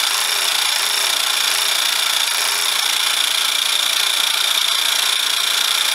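Converted 12-volt miniature piston air compressor running steadily as a vacuum pump on a bench test, powered from a 13.5-volt DC transformer: an even mechanical running noise with a constant high whine in it. The test shows the pump working, with good suction and good pressure.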